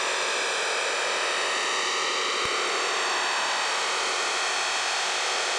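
Shortwave receiver audio of a Digital Radio Mondiale digital broadcast: a steady, even hiss with a few faint steady tones in it, the sound of the undecoded digital signal rather than any programme audio.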